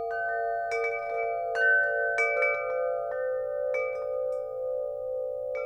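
Metal chimes struck one after another at an irregular pace, about nine strikes, each note ringing on and overlapping the others in a sustained shimmer.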